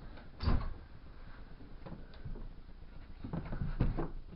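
Wooden fittings of a small bird hide being handled, as its viewing window is opened: a thud about half a second in, then light knocks and scrapes of wood.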